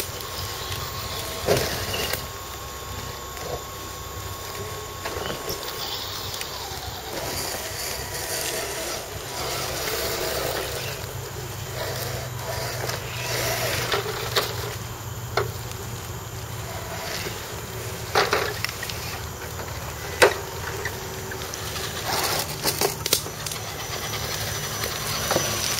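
Scale RC crawler trucks driving over dry leaf litter, the leaves crackling under their tyres, with a few sharp snaps of twigs and a steady low hum underneath.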